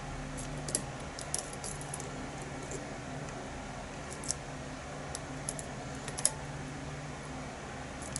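Lock pick and tension wrench working the pins of a pin-tumbler challenge lock held in a false set, giving faint, irregular small metallic clicks and ticks. A steady low hum runs underneath.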